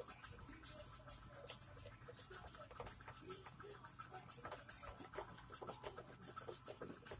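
A spoon stirring flour and water into paper mache paste in a plastic bowl: faint, rapid, irregular scraping and tapping against the bowl's sides.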